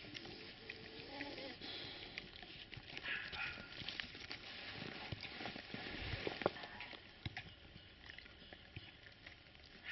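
Tibetan mastiff puppies moving about in snow close up: faint snuffling, rustling and scattered soft clicks and crunches, with a short low pitched sound about a second in.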